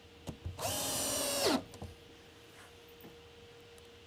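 Cordless drill driving a screw through the pre-drilled aluminum jamb cover into the wooden door jamb. It runs once for about a second as a high motor whine, then drops in pitch as it winds down.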